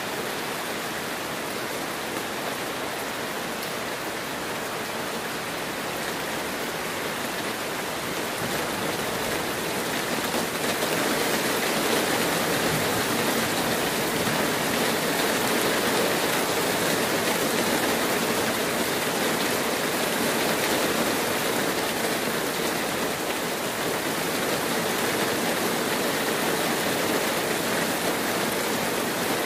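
Heavy rain falling steadily, a dense even hiss that grows louder about ten seconds in.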